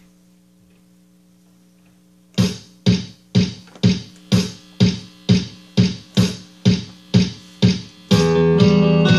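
Stratocaster-style electric guitar, amplified. A steady low hum for about two seconds, then the same notes picked about twice a second, each dying away before the next. About eight seconds in it breaks into loud, continuous ringing chords.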